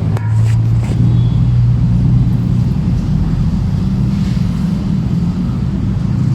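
A steady low motor rumble, with a few light clicks in the first second.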